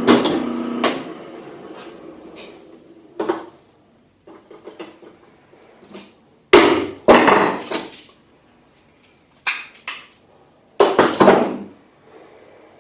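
A drill press motor hum stops about a second in. After it, a hammer strikes a thin metal punch in irregular sharp knocks, some in quick pairs, driving the drilled-out rivets from an Alox Pioneer Swiss Army knife.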